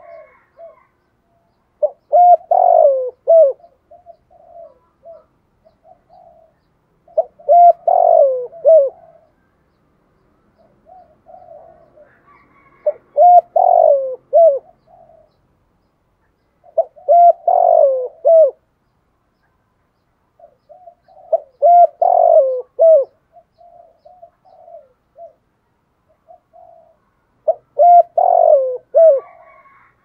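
Spotted dove cooing: six loud phrases of several coos each, about every five seconds, with softer coos in between.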